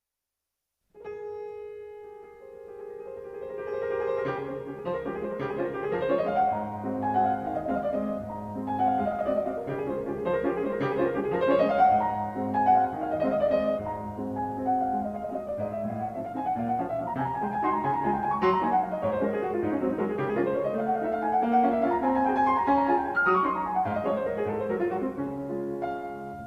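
Background piano music: a quiet held opening about a second in, then flowing runs of notes that rise and fall.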